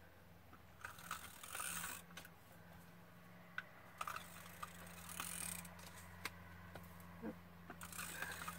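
Handheld glue tape runner (glue mouse) drawn across paper card in several short strokes, its dispensing mechanism clicking and rasping with each pass.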